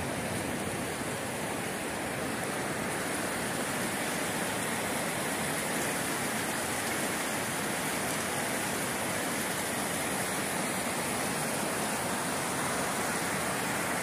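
Fast-flowing river water rushing, a steady, even noise with no break.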